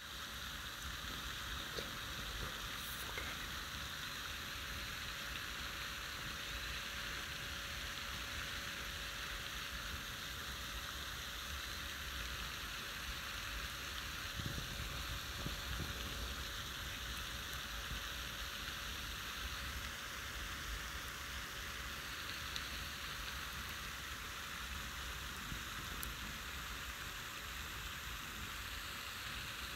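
Steady rain falling on a pond's surface, an even hiss, with a low rumble underneath.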